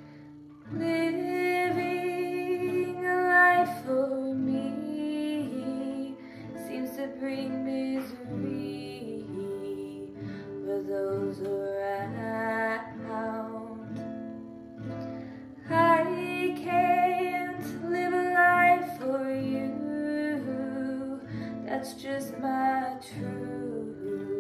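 A woman singing with acoustic guitar accompaniment, the guitar and voice coming in together a little under a second in.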